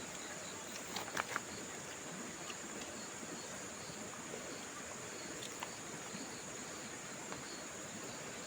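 Insects chirring steadily in one high, even tone over a soft background hiss, with a few light clicks about a second in.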